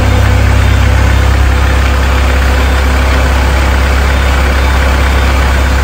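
Engine of a truck-mounted aerial lift (bucket truck) idling steadily, a loud, even low drone.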